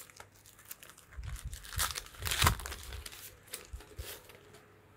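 Shiny plastic wrapper of a collectible Pokémon figure being torn open and crinkled by hand: a run of irregular crackles with a few dull bumps from handling, dying away near the end.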